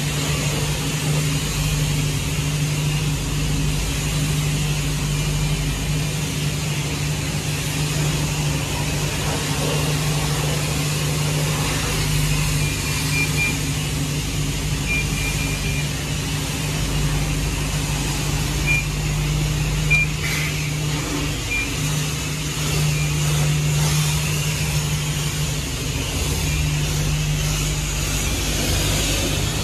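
Steady motor hum under an even hiss, running without change, with a few short high beeps in the middle.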